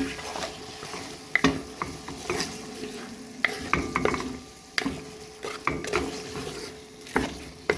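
A spoon stirring chunks of potato, okra, onion and conch in a metal pot, with irregular clicks and scrapes of the spoon against the pot over the sizzle of the food sautéing.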